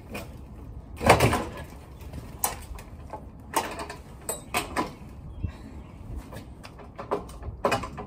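Irregular metal clunks, knocks and scrapes as an old gas-fired boiler with its sheet-metal jacket is shifted and handled by hand; the loudest clunk comes about a second in, with a brief ring, and smaller knocks follow every second or so.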